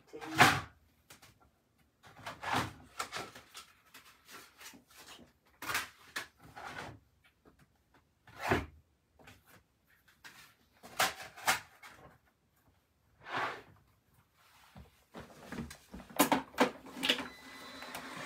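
Rummaging about: a string of separate knocks and clatters, like drawers and cupboard doors being opened and shut and things being moved, with short quiet gaps between them. A steady machine hum starts near the end.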